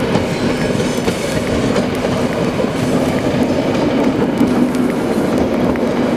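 Electric multiple-unit passenger train passing, its wheels clicking over the rail joints with a steady hum beneath.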